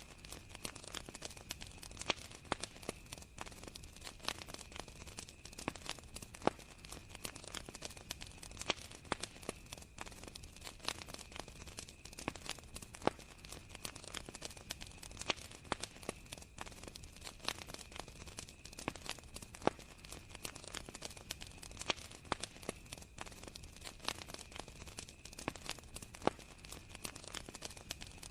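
Campfire crackling, with irregular pops and snaps throughout, over a steady high trill of crickets.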